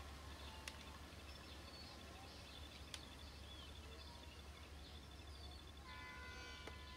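Near silence: faint outdoor ambience with a steady low hum and scattered faint bird chirps, plus a couple of soft clicks. Faint steady tones creep in near the end.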